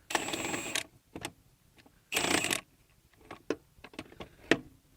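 Milwaukee 1-inch cordless impact wrench run in two brief bursts, one at the start and one about two seconds in, spinning a nut back on, followed by light metallic clicks and knocks from the socket and nut.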